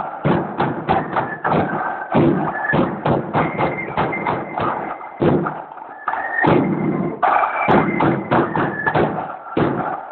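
Marching-band snare drums (tip drums) and a bass drum playing a fast, steady beat together. The beat breaks off briefly twice, a little past the middle, then picks up again.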